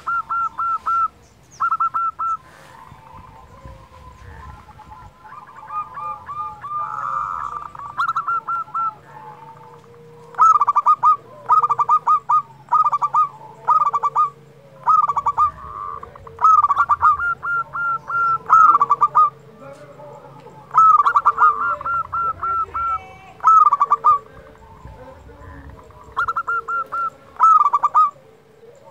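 Zebra dove (perkutut) singing: bursts of rapid, short, high coos. They are fainter for the first few seconds and then come louder, one burst every second or two.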